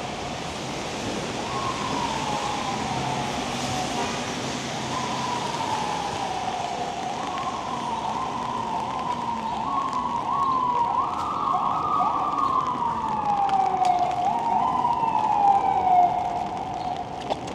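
Emergency vehicle siren wailing in repeated falling sweeps, each jumping quickly back up to start again. A second siren overlaps around the middle, and the sirens grow louder toward the end.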